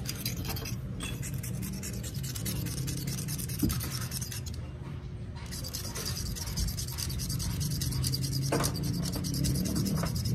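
Steel door-hinge pin being scraped and rubbed to strip its paint, in rapid back-and-forth strokes with a short pause about halfway; the paint is removed so the pin won't score the new hinge bushing.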